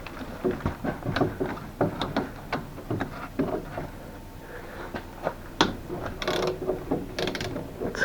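Ratchet wrench with a 13 mm socket clicking as bolts are undone, with irregular metal clicks and clinks.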